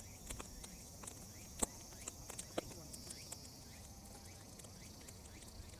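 Sun-dried weeds crackling as they burn in an open fire: irregular sharp pops and ticks, the loudest about a second and a half in, over a faint steady high hiss.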